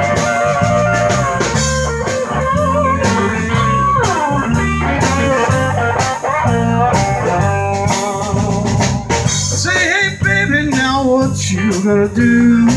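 Live blues band playing an instrumental passage, steady and loud: drum kit, electric bass, keyboard, electric guitar and saxophone, with a wavering, bending lead line over a repeating bass figure.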